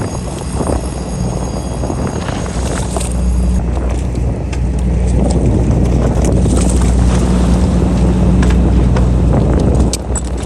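Tuna fishing boat's engine running steadily under wind and water noise, the drone growing louder about five seconds in. A few sharp knocks near the end.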